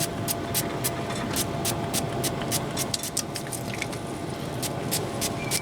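Trigger pump spray bottle of liquid butter spritzing chicken in rapid short squirts, about three to four a second, over a faint steady hum.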